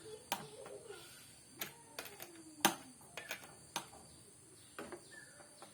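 Irregular sharp clicks and taps, about ten, the loudest about two and a half seconds in, with faint voices in the background. No chainsaw is running.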